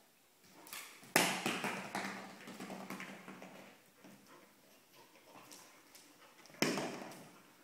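A hard chew toy striking and skittering across a tile floor twice, about a second in and near the end, with a dog's claws tapping on the tiles in between.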